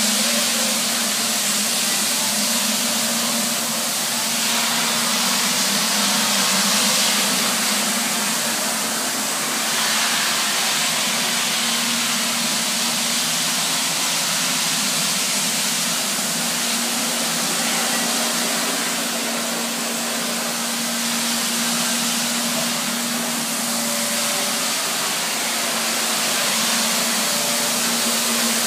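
Nilfisk BA531D walk-behind scrubber dryer running steadily: an even motor-and-suction hiss with a steady low hum underneath, swelling and easing only slightly.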